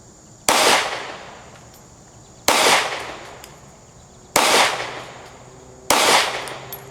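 Glock 43X 9mm pistol fired four times, a shot every one and a half to two seconds, each sharp report trailing off in a long echo.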